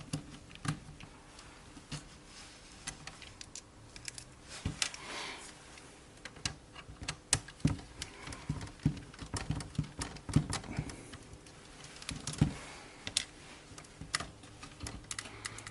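Irregular small clicks, taps and knocks of tools and metal hardware being handled as a bracket is unscrewed and taken off a 3D printer's Z-axis leadscrew.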